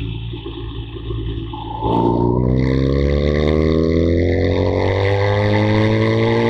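BMW R 1200 GS boxer-twin engine under a motorcycle's wind rush, running quieter and rougher for about two seconds, then under throttle, its pitch climbing steadily as the bike accelerates through the gear.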